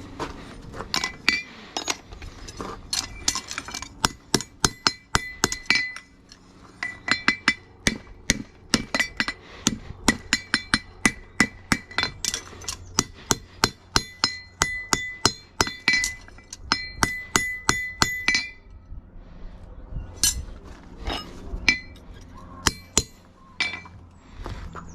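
Farrier's hammer striking steel in quick runs of ringing blows with short pauses, stopping about 18 seconds in, then a few scattered strikes.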